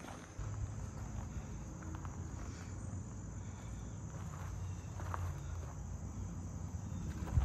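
Steady high drone of insects such as crickets, over a hiker's footsteps on a trail and a low rumble on the microphone.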